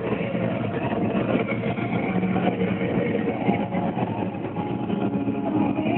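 Car driving along a road, engine and tyre noise heard from inside the cabin, steady throughout.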